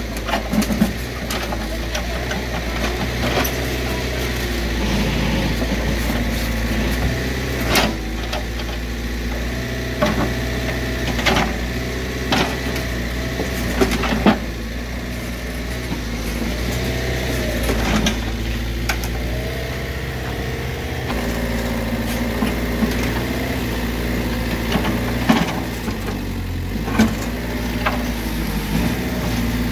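Diesel engine of an XCMG mini excavator running steadily, with a tone that rises and falls a few times and several sharp knocks along the way.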